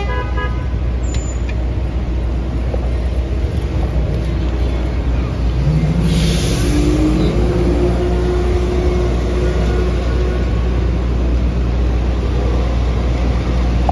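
City street traffic: vehicle engines running with a steady low rumble. About six seconds in, a bus's air brakes hiss briefly while a heavy engine's pitch rises.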